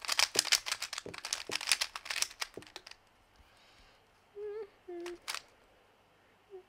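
A 3x3 speedcube, freshly lubed with silk lube, turned rapidly to break the lube in: a fast run of plastic clicks for about three seconds. Near the end come a few short hummed notes and a single click.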